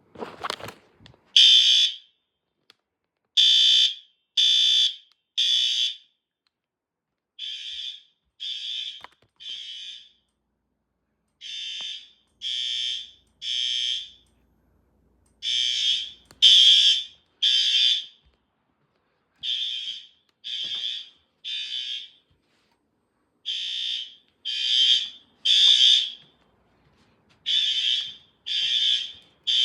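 Fire alarm horn sounding the temporal-3 evacuation pattern: three short high-pitched blasts, a pause, then three again, about every four seconds. Some rounds are quieter than others. A short noise comes right at the start.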